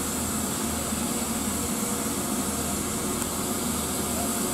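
Steady hiss of steam from the LMS Stanier Black Five steam locomotive 44871, over a low hum.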